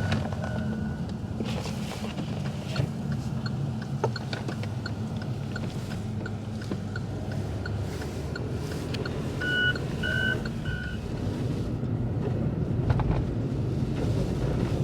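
Steady engine and road hum heard inside a car's cabin while driving slowly through deep snow, with faint regular ticking. Three short beeps sound about ten seconds in.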